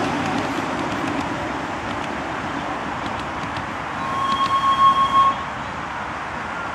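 Miniature ride-on passenger train running on its narrow-gauge track, a steady rumble of wheels on rails that eases slightly as it moves away. About four seconds in, a steady high tone sounds for just over a second.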